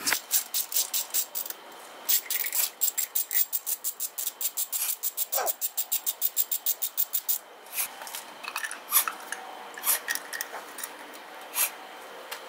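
Ratchet wrench clicking in fast, even runs of about seven clicks a second as the handle is swung back and forth on a bolt at the front of the engine, followed by a few scattered clicks and taps near the end.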